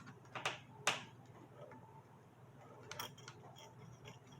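Small clicks and taps of a camcorder's plastic body being handled, a couple about half a second in, the sharpest about a second in, and a few lighter ones about three seconds in.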